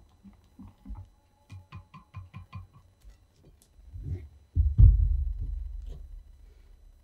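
Wire whisk beating an egg mixture in a glass measuring jug, ticking against the glass in quick, even strokes. About four and a half seconds in comes a heavy low thump, and its rumble fades over about two seconds.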